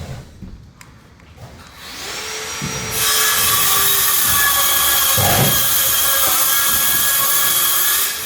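A power tool motor spins up about two seconds in, then runs loud and steady with a whine for about five seconds before cutting off near the end.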